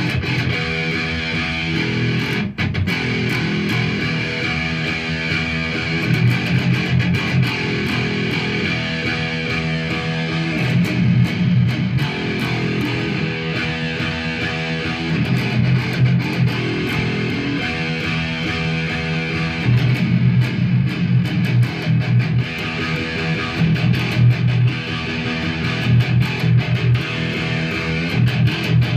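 Solo electric guitar playing a riff, with low notes under a phrase that repeats about every two seconds.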